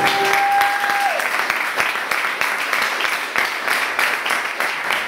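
Audience applauding, a dense steady clapping, with one long held high note over it that stops about a second in.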